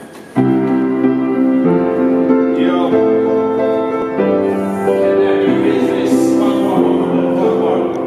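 Upright street piano played in slow, sustained chords that change every second or so, starting suddenly about half a second in.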